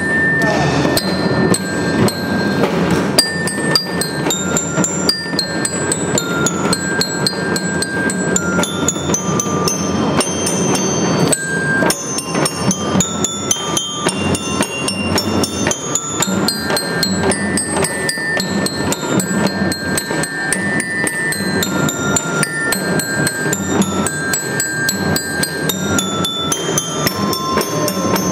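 Children's drum band playing: dense, rapid drum strokes under a ringing, bell-like melody that steps up and down in pitch.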